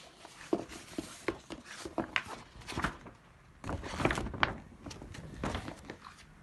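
A folded paper poster being handled and opened out: irregular paper crackles and rustles with small knocks, busiest about four seconds in.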